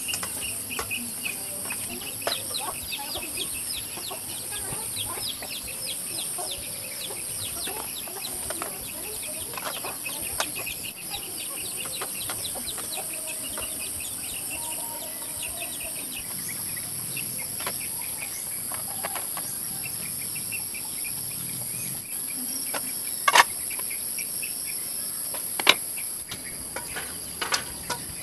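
Outdoor ambience of insects and birds: a steady high-pitched insect drone, with fast repeated bird chirps over roughly the first half, and two sharp knocks near the end.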